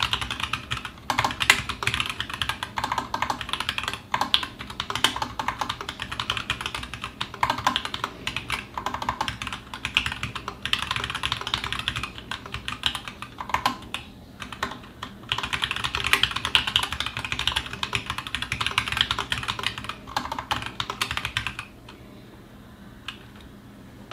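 Typing on a TGR Alice mechanical keyboard with unlubed 78 g Zealio v2 tactile switches and GMK keycaps: fast, irregular keystrokes in runs with short pauses. The typing stops about two seconds before the end, leaving one or two single keystrokes.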